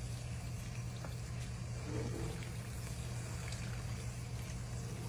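Melted butter and caramel bubbling and sizzling around popcorn kernels in a cast iron skillet on high heat, with a spatula stirring through it, over a steady low hum.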